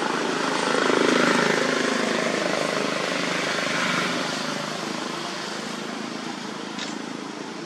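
A steady engine drone that slowly fades away, with a single short click near the end.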